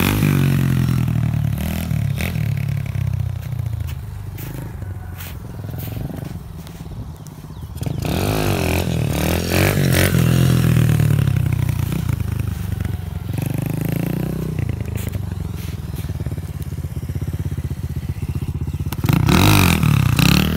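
Coolster 125cc pit bike's single-cylinder four-stroke engine revving up and down as it rides by, the throttle opened hard to lift the front wheel. Its pitch climbs and falls in several pulls, quieter for a moment about six seconds in and loudest about eight to ten seconds in and again near the end.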